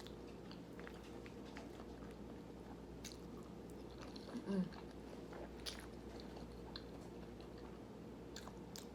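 A person chewing a mouthful of food, with faint wet mouth clicks over a low steady hum. A short hummed voice sound comes about four and a half seconds in.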